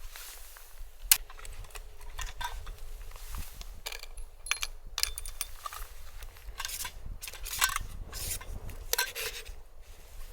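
Hard wind rumbling on the microphone, with a scatter of irregular clicks and rustling crackles over it.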